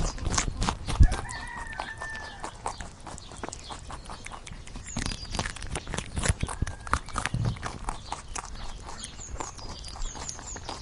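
Rooster crowing once, a call of about a second starting about a second in, with a fainter call later. Scattered sharp clicks and taps run throughout, and there are short high chirps.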